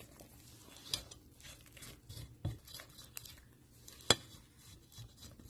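Spatula stirring thick brownie batter in a mixing bowl: faint scraping and small knocks of the spatula against the bowl, with a sharp click about a second in and a louder one about four seconds in.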